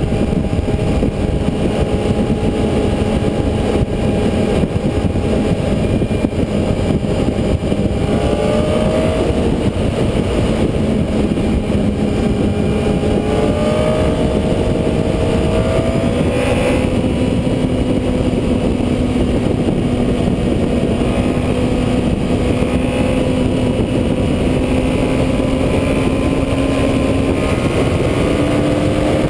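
Honda CBR954RR's inline-four engine running under way, under heavy wind rush on the bike-mounted microphone. The engine note glides and shifts in pitch several times as speed and throttle change, climbing near the end.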